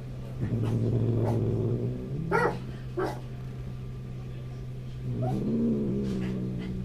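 A cat growling in two long, low drawn-out yowls, with two short sharp cries between them: an upset cat.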